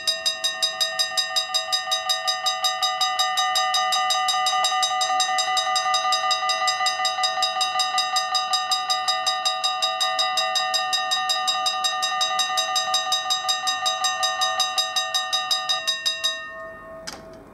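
Level crossing warning bell ringing in rapid, even strokes, about five a second, warning of an approaching train. The ringing stops near the end, and a single short knock follows.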